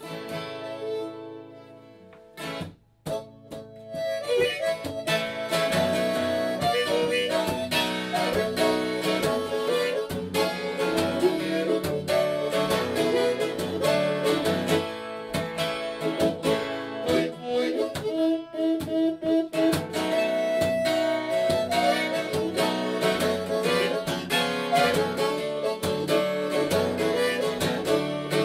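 Harmonica amplified through a Rackit! harmonica microphone at fairly low gain, played over guitar as an instrumental intro. A held opening chord fades, there is a brief break, and from about four seconds in the harmonica and guitar settle into a steady groove.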